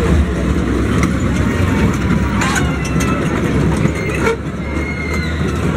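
Fairground din: a steady low rumble with the mixed voices of a crowd, and a few sharp clicks about halfway through.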